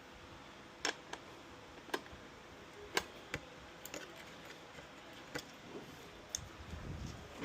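Sharp ticks or clicks, roughly one a second and less regular later, over a faint steady hiss, with some low rumbling near the end.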